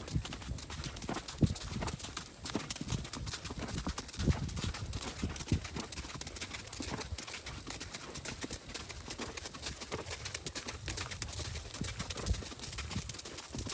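Horse hooves clip-clopping at a walk on a dirt road, an uneven, steady run of steps.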